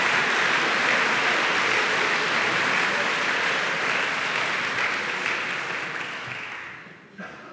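Audience applauding, steady at first and dying away over the last second or two.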